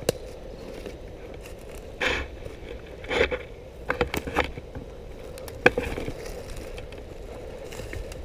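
Footsteps crunching and scraping through dry undergrowth, a few irregular steps with a sharp snap about two-thirds of the way in.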